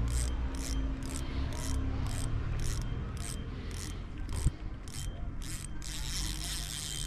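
Spinning reel being cranked to retrieve a squid jig, a rhythmic rasp about twice a second. About 4.5 s in there is a single knock, and near the end the rasp turns into a steadier hiss.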